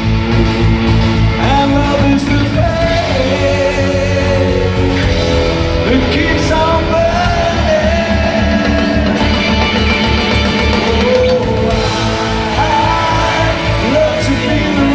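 Live rock band playing a song: electric guitars and drums with a singing voice over a steady beat.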